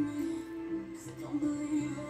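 Music playing: a simple melody of held notes over a stepping bass line.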